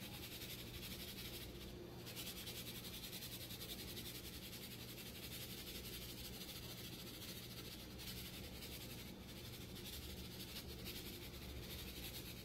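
Faint, continuous sprinkle of granular egg cure shaken from a plastic shaker bottle onto salmon egg skeins, over a low steady hum.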